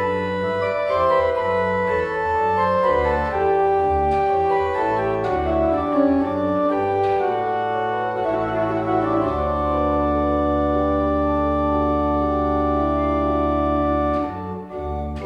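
Organ playing slow sustained chords over a deep pedal bass, changing chord every second or so, then holding one long chord for about five seconds before a short break and a new chord near the end.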